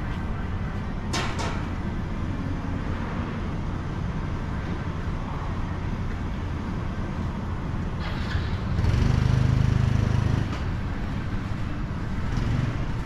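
City street ambience with a steady traffic rumble. A vehicle passes close, louder from about nine to ten and a half seconds in. Two short clicks sound about a second in.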